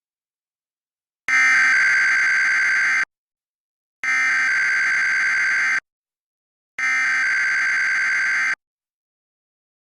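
Emergency Alert System SAME header: three bursts of raspy digital data tones, each nearly two seconds long, with about a second of silence between them. These bursts encode the alert's originator, event and area, and open an emergency alert.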